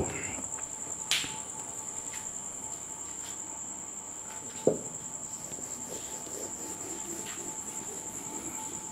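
A cricket trilling steadily at a high pitch, with two soft knocks and faint rubbing as a duster wipes a whiteboard.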